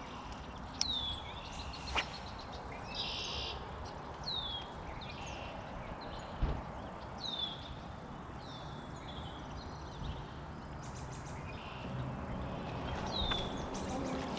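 Songbirds calling along the shore: a short down-slurred whistle repeated every second or two, with a buzzy call now and then. A sharp tick comes about two seconds in and a low knock midway.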